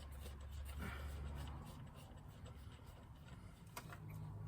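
Faint rubbing and light clicks of the air compressor's air filter being pulled off by hand, over a low hum.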